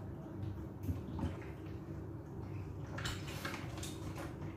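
Light clinks and rustles of handling the catch at a kitchen sink, a few short sharp sounds scattered through, over a low steady hum.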